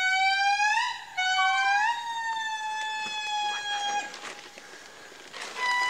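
Indri calling: long, loud, wailing notes. One note rises and breaks about a second in, a long slowly falling note follows until about four seconds, and after a short pause another note begins near the end. This is the indri's territorial song, which carries for miles.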